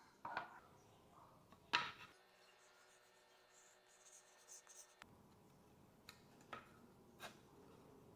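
Melamine-faced boards handled on a wooden workbench: a light knock just after the start and a sharper knock just under two seconds in as a board is set down, then a few faint taps and rubbing.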